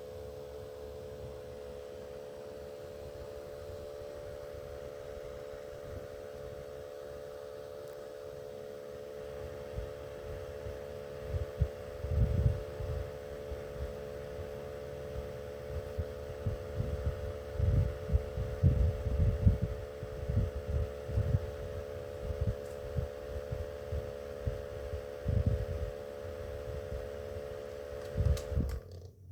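Small electric motor of a miniature wall fan running with a steady hum, joined from about ten seconds in by irregular low thumps. The hum cuts off suddenly near the end.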